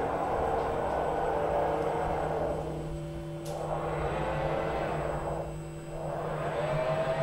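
Motor drives of a robotic X-ray imaging unit in a particle-therapy treatment room humming steadily as its flat-panel arms swing into position, with a whine that starts rising in pitch near the end.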